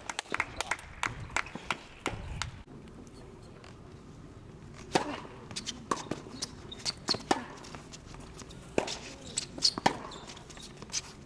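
Tennis rally on a hard court: sharp pops of the ball off the racket strings and its bounces on the court, starting about five seconds in and going on at an irregular pace. A scatter of lighter taps and footsteps comes in the first two seconds.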